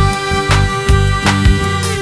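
Background music: electronic dance track with a steady beat and sustained melodic synth notes.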